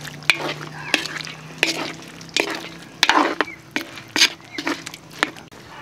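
Spatula scraping and knocking against a wok in irregular strokes while stirring a simmering tomato-sauce chicken stew, with a soft bubbling under the strokes.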